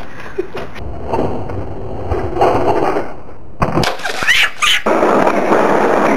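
Skateboard wheels rolling on concrete, broken about four seconds in by a cluster of sharp clatters as the board and skater hit the ground in a fall.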